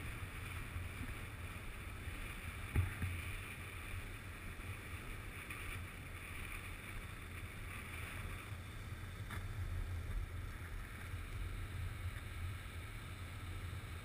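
Low wind rumble on the microphone over the steady wash of small waves on the beach, with a single bump about three seconds in.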